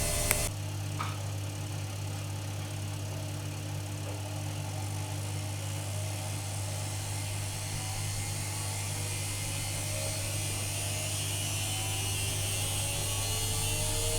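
AEG Öko-Lavamat washing machine: a click and the running sound cuts out abruptly, leaving a steady low hum. After several seconds, a slowly rising whine builds as the drum motor speeds up again, typical of the spin being ramped up.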